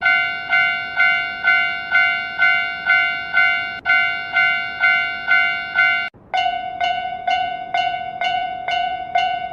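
Japanese railroad crossing warning bell ('kan kan'), a ringing tone struck about twice a second. Just after six seconds in it stops for a moment and starts again at the same pitch and pace with a thinner, duller ring.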